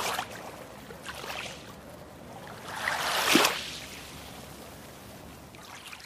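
Water lapping and splashing, with a louder wash of water about three seconds in.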